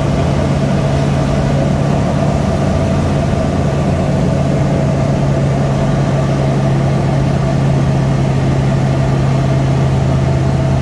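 Light aircraft's piston engine and propeller droning steadily, heard from inside the cabin.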